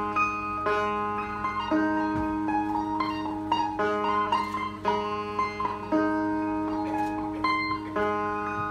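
Sape, the wooden boat lute of Borneo's Orang Ulu, played solo: a plucked melody of quick, ringing notes over a steady low drone.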